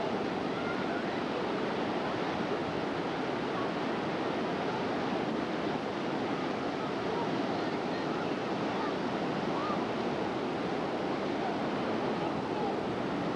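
Ocean surf breaking and washing up a sandy beach: a steady, unbroken rush.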